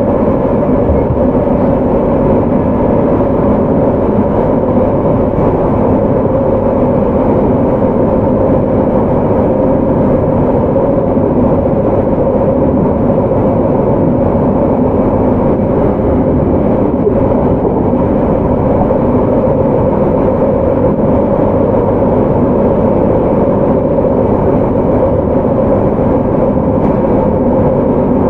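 Running noise of a JR Hokkaido 731 series electric train with Hitachi IGBT VVVF equipment (motor car MoHa 731-114), heard from on board. It holds a steady speed, with a constant low rumble and no change in pitch.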